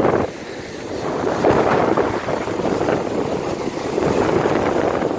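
Storm surf on a pebble beach: waves surging in, the roar swelling and easing every couple of seconds, with wind buffeting the microphone.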